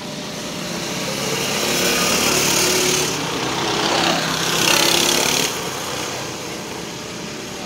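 Small single-cylinder race car engines running laps on the track, buzzing at high revs and getting louder twice as the cars come past.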